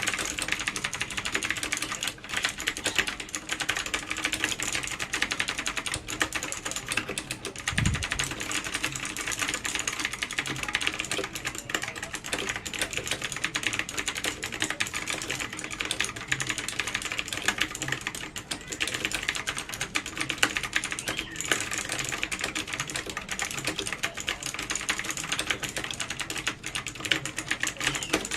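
Fast, continuous typing on an Aula F3261 60% mechanical keyboard with clicky blue switches: a steady stream of sharp key clicks.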